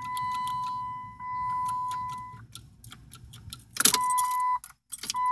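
A steady, high electronic warning chime from a 2004 Chrysler PT Cruiser's dash, over light jingling of keys. The chime breaks off about halfway. Near four seconds the key ring rattles loudly as the key is worked in an ignition that will not turn, then the chime sounds again.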